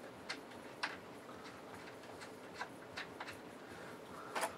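Light scattered clicks and taps as a cabinet panel is handled and fitted onto a 1968 Shibaden SV-700 videotape recorder, with a quick run of louder clicks near the end.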